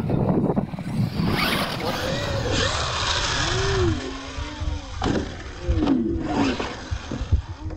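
Radio-controlled monster truck's electric motor revving up and down in short whines, with several knocks as the truck lands and bounces on the dirt, the loudest near the end.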